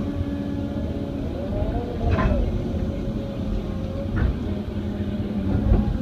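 Excavator's diesel engine running under digging load, its pitch rising and falling briefly about two seconds in. Sharp knocks sound three times, at about two, four and just under six seconds in, from the bucket working in dry clay.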